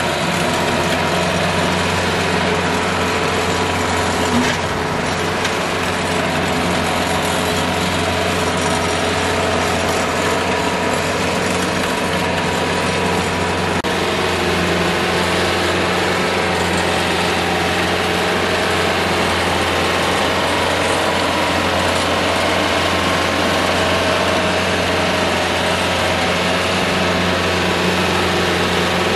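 Daedong tractor's diesel engine running steadily while it pulls a rotary tiller through the soil.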